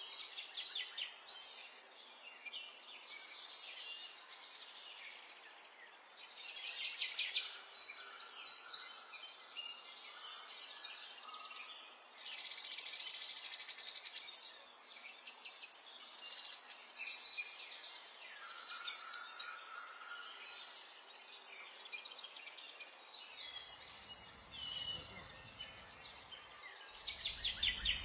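Several small songbirds singing at once: overlapping high chirps and fast trills, with one long rapid trill about twelve seconds in. A low rumble comes in near the end.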